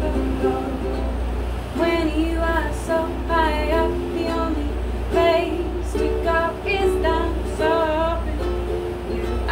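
A woman singing while strumming a ukulele, her voice rising and falling in phrases, with a steady low hum underneath.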